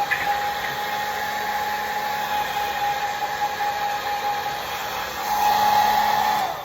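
Conair mid-size handheld hair dryer running steadily, an airy rush with a constant whine. It gets louder about five seconds in, then is switched off near the end and cuts out suddenly.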